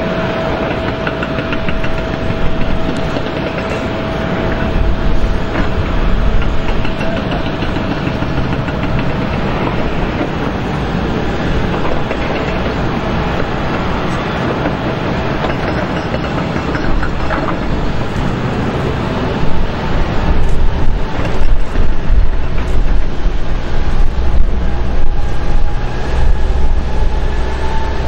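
Airbus A400M's four TP400 turboprop engines droning on approach and landing, with a steady tone that fades out by about halfway. About two-thirds of the way in the noise grows louder and rougher, with a deep uneven rumble.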